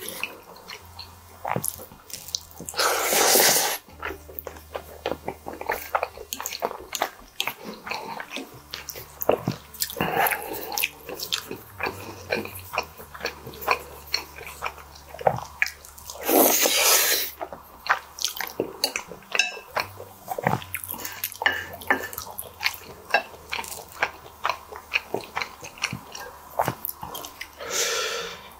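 Close-miked eating of squid ink spaghetti: wet chewing and mouth clicks all through, with two louder noisy bursts about a second long, one a few seconds in and one about midway.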